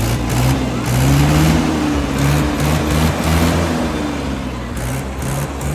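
Mahindra 585 DI tractor's diesel engine running under throttle as it drives, its pitch rising and then easing off.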